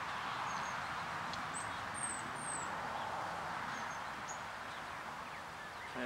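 Steady rushing background hiss, with a few short, faint, high chirps of small birds scattered over it.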